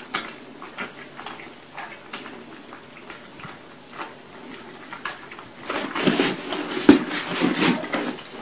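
Several kittens lapping milk from bowls: a run of small quick clicks, growing louder and busier from about six seconds in.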